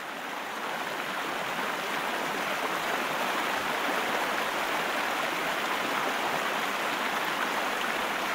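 Water of a shallow, rocky stream running over stones: a steady rush that fades in over the first second.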